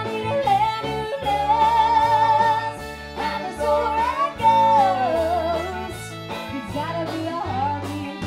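A woman singing a country song live into a microphone with a band, holding long notes that waver and slide between pitches over a steady beat.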